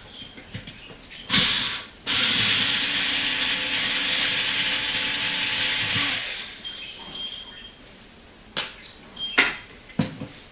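A small electric motor gives a brief burst, then runs steadily for about four seconds with a hiss and a steady hum before stopping. A few sharp clicks and knocks follow near the end.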